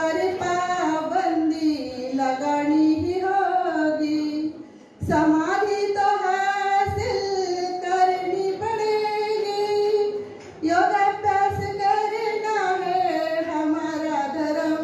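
A woman singing unaccompanied in long, held, sliding phrases, pausing briefly for breath twice.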